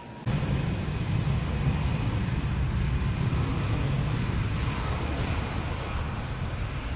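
Boeing C-17A Globemaster III's four turbofan engines at take-off power: a loud, steady jet rumble that cuts in abruptly just after the start and eases slightly toward the end.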